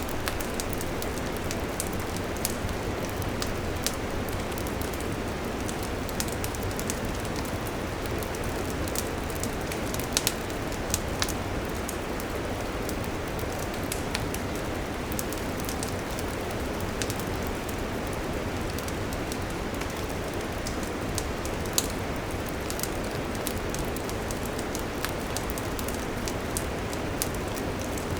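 Wood fire burning, a steady rushing hiss with many irregular sharp crackles and pops; a few louder pops come about ten and eleven seconds in and again about twenty-two seconds in.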